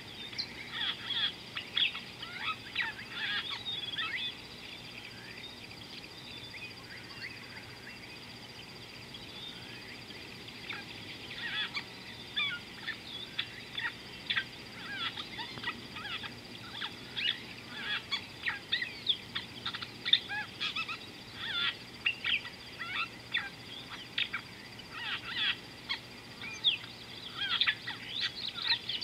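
Birds calling in a busy chorus of short, quick chirps and trills. The calls thin out for several seconds about four seconds in, then pick up again, over a faint steady high tone.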